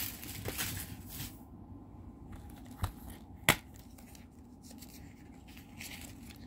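Soft handling and rustling of a plastic disc case being opened, with two sharp clicks a little after the middle, the second louder.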